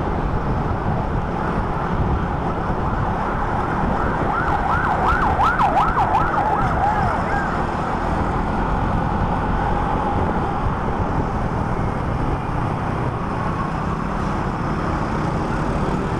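A siren wails in a fast rising-and-falling yelp for about three seconds partway through, over the steady engine and wind noise of a Honda ADV150 scooter riding in traffic.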